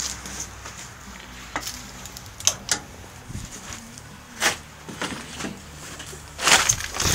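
Handling noise: a few scattered clicks and knocks, then a louder rustle near the end, as the camera phone is handled with its lens covered.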